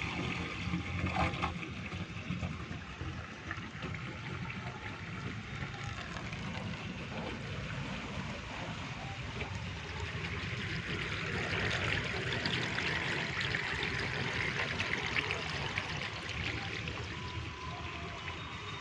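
Water trickling and splashing into a drain, louder and busier for several seconds from about halfway through, over a steady low rumble.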